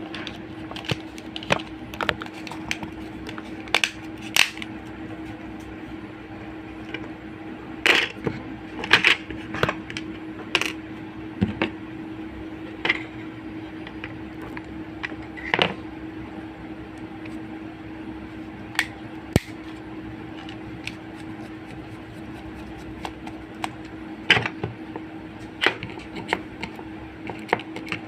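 Irregular clicks and taps of a keypad mobile phone's plastic housing and parts being handled and fitted back together, over a steady low hum.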